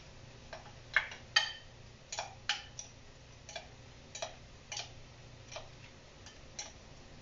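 A utensil clicking and scraping against a small glass bowl as chunky tomato salsa is stirred: about fifteen sharp, uneven clicks.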